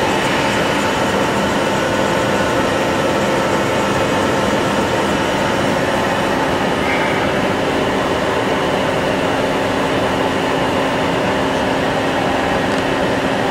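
Milltronic HBM 4 CNC horizontal boring mill running under power: a steady mechanical hum with several held tones.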